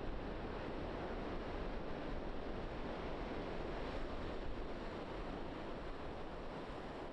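Ocean surf: a steady wash of waves that eases slowly near the end.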